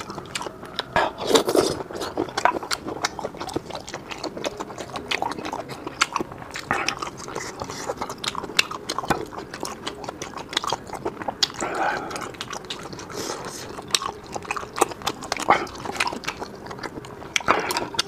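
Close-up mouth sounds of chewing rubbery sea snail meat, with many sharp wet clicks and smacks of the lips and tongue.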